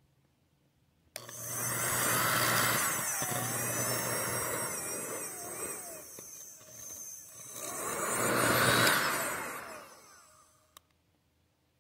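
SEEKONE 1800 W heat gun switched on with a click, its fan blowing a steady rush of air over a low motor hum, swelling and fading twice in loudness. It winds down near the end, followed by a single click.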